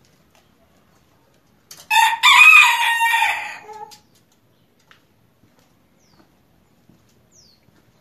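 Bantam rooster crowing once: a single crow of about two seconds, starting about two seconds in.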